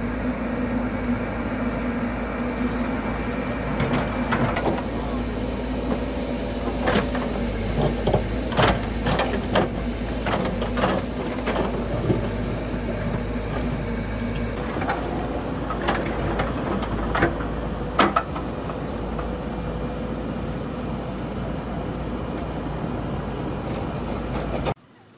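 Hidromek backhoe loader's diesel engine running steadily while the bucket digs in a muddy pond bed, with scattered knocks and clanks of the bucket and stones through the middle, the loudest about three quarters of the way through.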